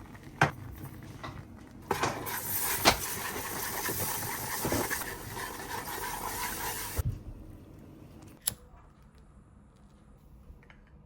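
Kitchen work: a few sharp knocks and clinks, then a steady hiss with clatter for about five seconds that stops suddenly, followed by a single click.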